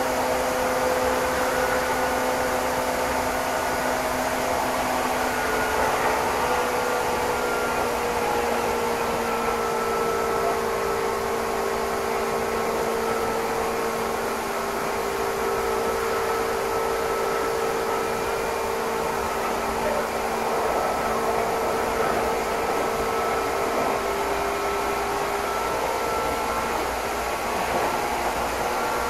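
Meitetsu Inuyama Line express train heard from inside the passenger car while running: a steady hiss and rumble with a few faint steady hums that sag slightly in pitch through the middle and come back up near the end.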